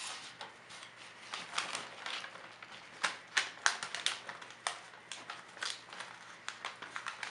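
Metallic gift-wrap paper crinkling and rustling in irregular crackles as hands fit a ribbon handle into the paper bag.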